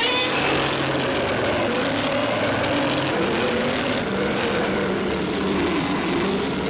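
A single Godzilla sound effect from Godzilla 1984, lasting about seven and a half seconds: a loud, harsh, rasping drone with a slowly wavering pitch. It starts and cuts off abruptly.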